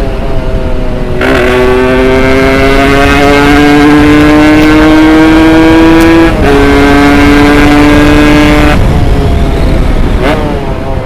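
Tuned Yamaha RX-S 115 two-stroke single-cylinder engine pulling hard under a rider. Its pitch climbs steadily in each gear and drops at upshifts about a second in and about six seconds in. Near the end it falls away as the throttle is closed.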